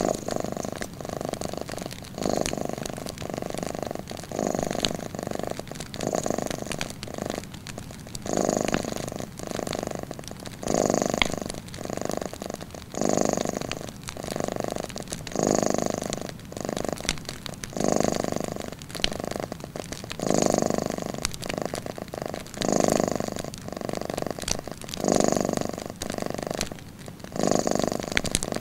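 Domestic cat purring steadily, in swells that rise and fall with each in- and out-breath about every one to two seconds. Faint crackles of a wood fire are heard now and then.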